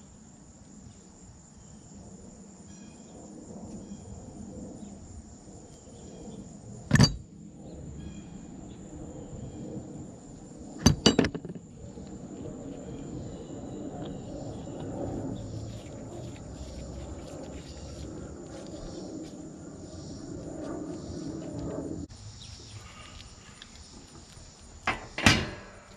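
Black iron pipe fittings being screwed together by gloved hands, a low scraping and rubbing of the doped threads, broken by sharp metal clinks: one about 7 seconds in, two close together about 11 seconds in, and a loud one near the end. A steady high insect trill runs underneath.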